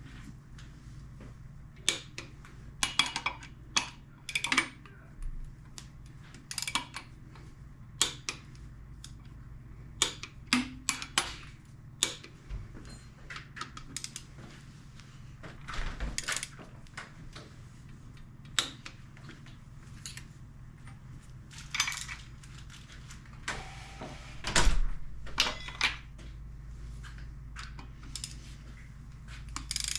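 Metal hand tools and engine parts clinking and clanking at irregular intervals, some knocks coming in quick clusters, over a steady low hum.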